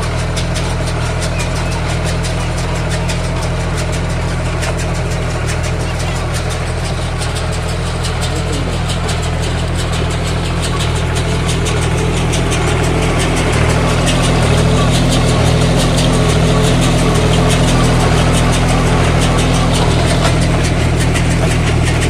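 Fiat 540 tractor's diesel engine running steadily, with a fast clatter over its hum, a little louder from about halfway through.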